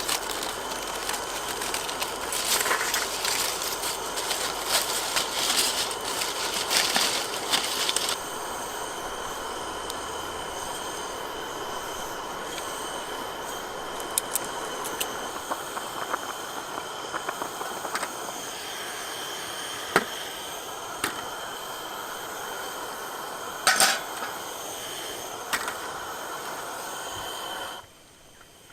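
Outdoor ambience: a steady hiss with faint, steady high tones and scattered sharp clicks and cracks. It is louder and busier for the first eight seconds or so, then settles.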